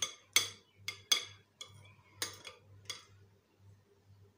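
Metal spoon clinking against a cut-glass bowl as cream is spread over set custard: about six sharp clinks in the first three seconds, then quieter.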